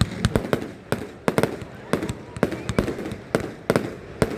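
Fireworks going off: a rapid, irregular string of sharp bangs, several a second.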